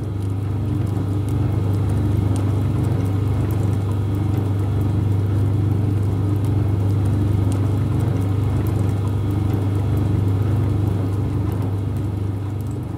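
A large engine running steadily with a deep, even hum, swelling in at the start and easing off near the end.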